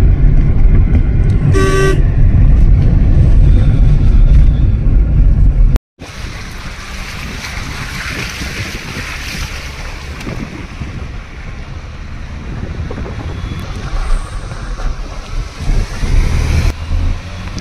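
Wind buffeting the microphone with a heavy low rumble, and a vehicle horn giving one short honk about two seconds in. After a brief cut near six seconds, a softer steady outdoor hiss; the low wind rumble returns near the end.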